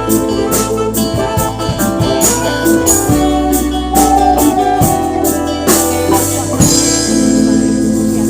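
Live acoustic band playing with guitar, bass and a steady percussion beat. About seven seconds in the beat stops and a chord is held.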